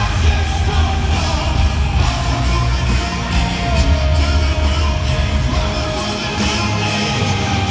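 Rock band playing live through an arena sound system, with heavy bass and drums, guitar and a sung vocal line.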